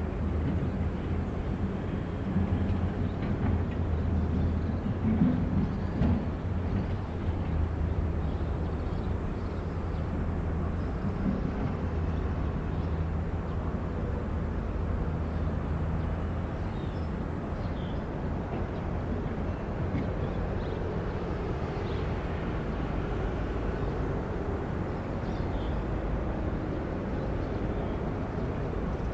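Diesel engine of a piece of heavy construction machinery running steadily, with a few short knocks in the first several seconds.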